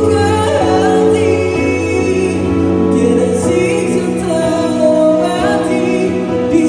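A solo singer singing a slow song live, accompanied by sustained chords on a Yamaha electric keyboard.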